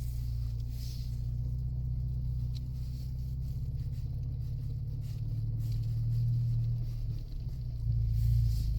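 Steady low drone of a 2024 Ford Mustang EcoBoost's turbocharged 2.3-litre four-cylinder and its tyres, heard from inside the cabin while driving through deep snow. It swells slightly twice, in the second half.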